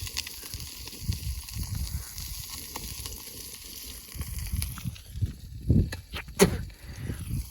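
Bluegill frying in very hot oil over a wood fire: a steady sizzle with fine crackling. A few louder knocks come in the last two seconds.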